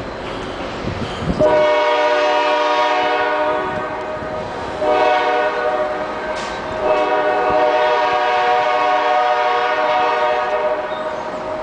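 Switcher locomotive's air horn sounding a chord in three blasts, long, short, long, as it crosses the road while switching cars.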